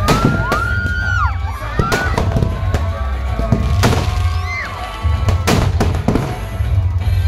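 Fireworks packed in a burning Ravana effigy going off: a string of sharp bangs, several a second at times, with high whistling glides. Crowd noise and loud music with a heavy bass run underneath.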